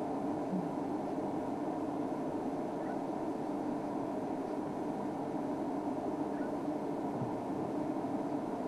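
A vehicle engine idling, a steady even hum that does not change.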